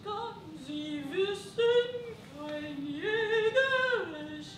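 A voice singing a slow melody in long held notes, stepping up and down in pitch, with a note every half second to a second.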